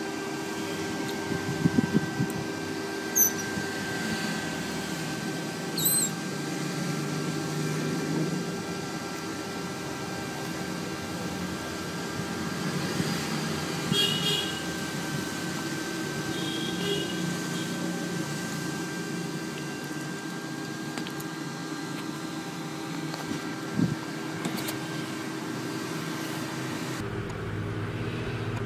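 A young otter gives a few short, high squeaks that drop in pitch, with clicks, about three and six seconds in, and brief high chirps about halfway through, over a steady hum with several faint held tones.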